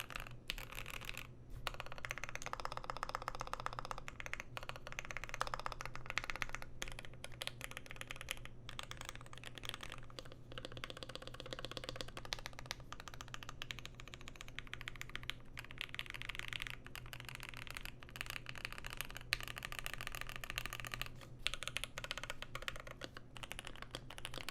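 Mechanical keyboard being typed on: a continuous run of fast keystroke clicks, with a steady low hum underneath.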